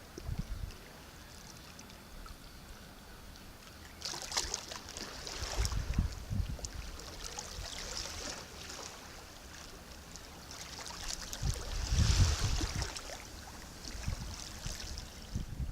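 Small sea waves washing and lapping, with two larger surges about four seconds and twelve seconds in, each with low thuds of water.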